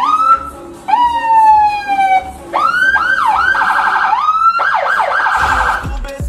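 Electronic vehicle siren cycling through its tones: a rising whoop, a long falling tone, several quick whoops in a row, then a rapid warble. Near the end a low bass beat joins it.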